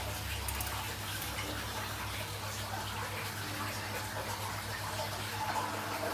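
Aquarium water circulation: a steady rush and trickle of filter-driven water and bubbles in the tank, with a low steady hum underneath.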